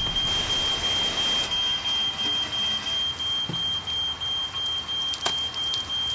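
A fire alarm sounds one high, steady tone over the hiss of ceiling sprinklers spraying water, set off by a kitchen fire. A single sharp knock comes about five seconds in.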